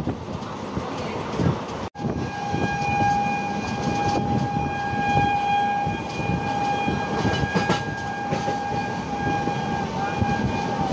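A moving train's wheels rumbling and clacking on the track. About two seconds in, a train horn starts and holds one long steady note for about eight seconds, stopping just before the end.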